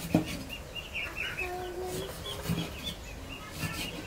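A cleaver chopping on a wooden cutting board: a handful of sharp knocks, the loudest just after the start. Small birds chirp steadily over it.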